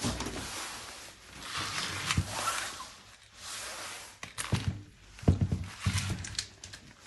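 Handling noise: rustling and scraping with several sharp knocks, the loudest about five seconds in.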